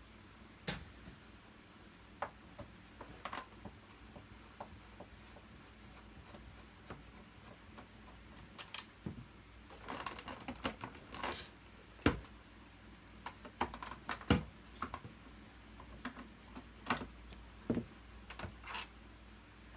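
Scattered clicks, taps and light knocks of a screwdriver and plastic parts as screws are undone from the handle of a Hoover Purepower U3450 upright vacuum cleaner, with a couple of sharper knocks partway through.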